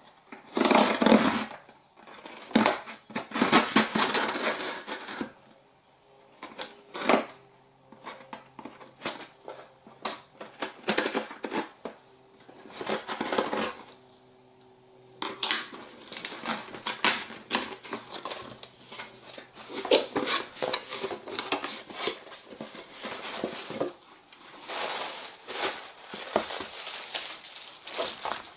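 A cardboard shipping box being cut open and unpacked by hand: irregular rustles, scrapes and knocks of cardboard flaps and packaging, in clusters with short pauses between.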